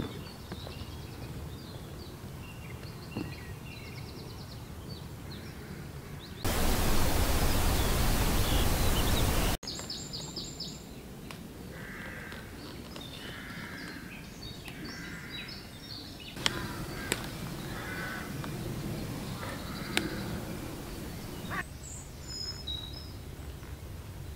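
Small birds singing and crows cawing, with a loud burst of rushing noise about six seconds in that lasts some three seconds and cuts off abruptly. A few sharp clicks come later.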